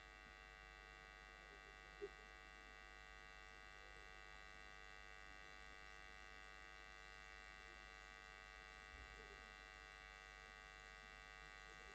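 Near silence: only a faint, steady electrical hum made of many fixed tones, the recording's own background.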